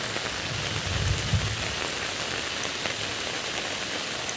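Steady rain falling and pattering, with a brief low rumble about a second in.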